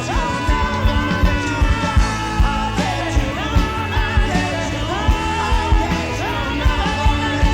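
Rock band song playing from a digitised cassette tape: a singing voice over drums, bass, guitar and keyboards, with a steady drum beat.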